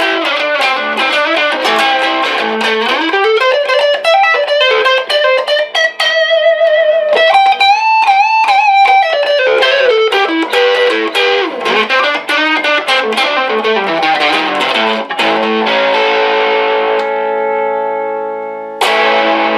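1959 Fender Duo-Sonic electric guitar with its original pickups, played through an amplifier. It plays a fast single-note lead line with string bends and vibrato, then lets a chord ring out and die away, and strikes a new chord near the end.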